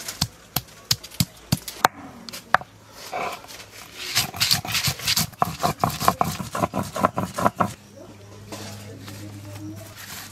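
Stone pestle on a flat grinding stone (shil-nora). It first knocks garlic and mustard seeds in sharp separate strikes, about three a second, then gives a faster run of stone-on-stone crushing and grinding strokes. Near the end it gives way to a softer steady noise with a low hum.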